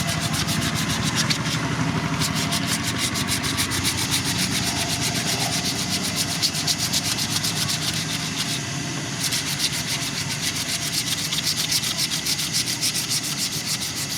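Sanding on the knife: fast, even rubbing strokes that keep going without a break.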